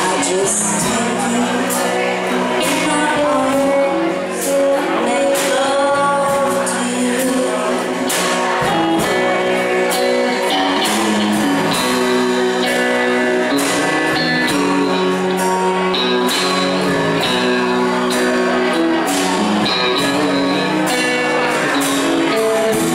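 Live band playing a slow country song on acoustic guitar, electric guitar, bass and drums, with the electric guitar taking a lead while the singer is off the mic.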